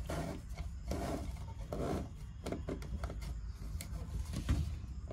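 Plastic dome security camera being turned by hand in its ceiling mount: short, irregular rubbing and scraping strokes with small clicks as the housing is rotated to adjust its angle.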